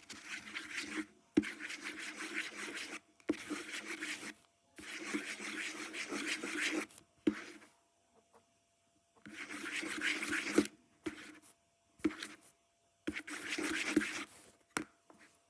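A mixing utensil stirring and scraping slime in a bowl, in about six spells of a second or two each with short pauses between, and a few sharp taps against the bowl.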